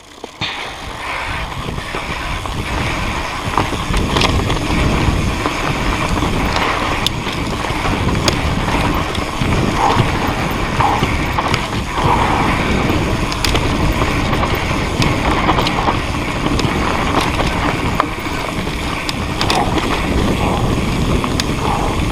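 Mountain bike ridden fast down a rough trail: tyre rumble, wind on the microphone and scattered clicks and rattles, with the Speedone Torpedo 8-pawl, 96-engagement rear hub's freehub buzzing as the bike coasts. The noise builds over the first few seconds as the bike picks up speed.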